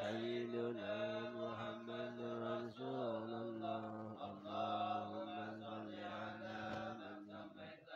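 Men's voices chanting an Arabic devotional sholawat (salawat on the Prophet) in unison, in long drawn-out melodic notes that shift pitch slowly.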